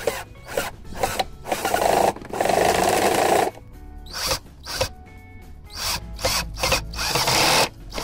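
Black & Decker cordless drill/driver driving wood screws into a board over timber, whirring in short bursts with two longer runs as the screws go in.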